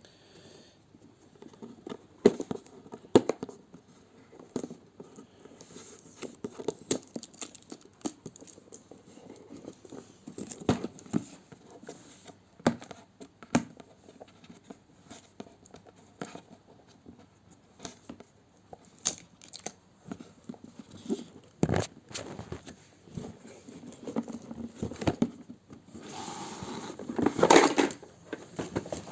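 Packaging around a graphics-card support bracket being handled and unwrapped: scattered clicks and taps with crinkling and tearing of wrapping. A longer, louder crinkling rustle comes near the end.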